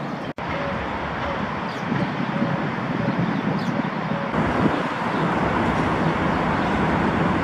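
Outdoor ambience: a steady wash of traffic noise with a few faint bird chirps in the first half. The sound drops out for an instant about half a second in, and turns steadier around four seconds in.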